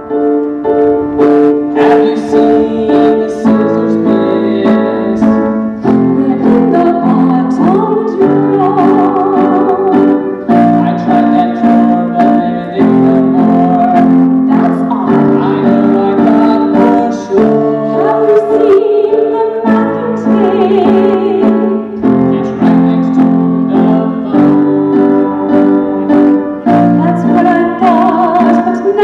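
A woman sings with vibrato over live piano chords that change every two seconds or so.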